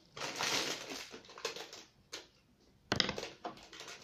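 Sticky glue-and-borax slime being worked by hand, a wet crackling, squishing rustle, with a sharp click about three seconds in.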